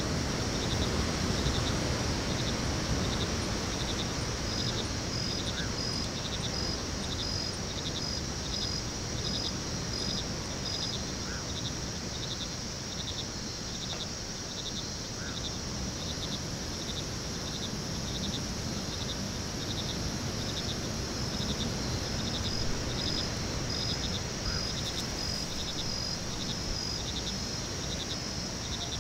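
Night crickets chirping: a steady high trill, with a regular pulsed chirp repeating a little more than once a second, over a low background rumble.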